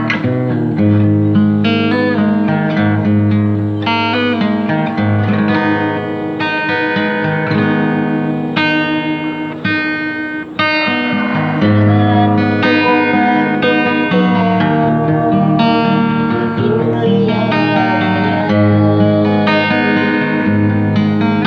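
Guitar-led music with plucked guitar notes over a steady bass line, dipping briefly about halfway through.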